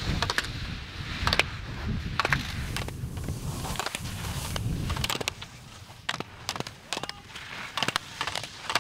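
Alpine skis carving and scraping over hard snow, with sharp clacks scattered through the run. A low rumble runs under it and drops away about five seconds in.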